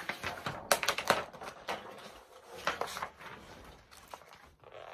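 Pages of a spiral-bound flip book being handled and turned: a run of irregular paper rustles and clicks, busiest in the first three seconds and thinning out toward the end.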